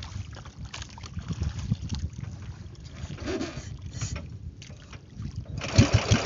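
Low rumble and a few knocks, then about five and a half seconds in a small boat engine starts suddenly and runs with a fast, even thumping.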